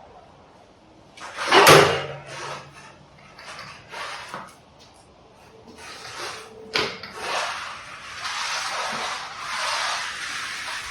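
Close handling noise on the camera: rustling and scraping, with a loud rustle about two seconds in and a sharp click about seven seconds in, then steady rubbing against the microphone, as a GoPro head-mount strap is fitted.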